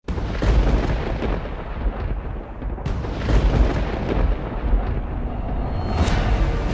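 Dramatic intro sound design: deep thunder-like rumbling booms, with sharp cracking hits about three seconds in and again about six seconds in, as intro theme music begins near the end.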